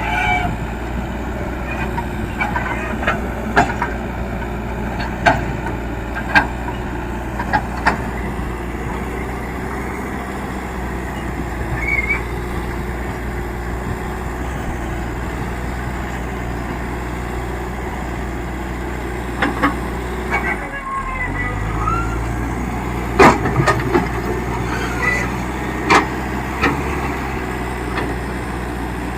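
Diesel engine of an old Leyland Deere 435 backhoe loader running steadily under work, with sharp knocks every second or two. About two-thirds of the way through, the engine note dips briefly, then shifts and rises again.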